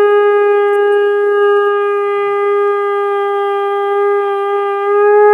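Conch shell (shankh) blown at a Hindu puja, held as one long steady note that swells a little just before it stops.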